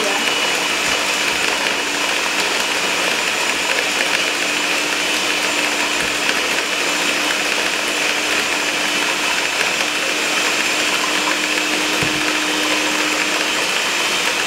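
Electric stand mixer running steadily, beating butter and sugar: an even motor hum with a whirring hiss.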